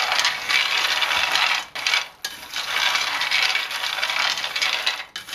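Cocoa beans being dry-roasted in a frying pan, stirred with a wooden spatula: a steady rattling, scraping clatter of the hard beans against the pan and each other, easing off briefly about two seconds in.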